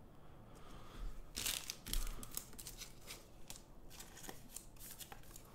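Faint crinkling and rustling of a trading-card pack's plastic wrapper and the cards being handled, with a cluster of sharper crackles about one and a half to two seconds in.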